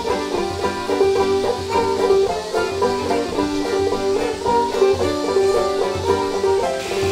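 Background bluegrass music led by a picked banjo, a steady run of quick notes.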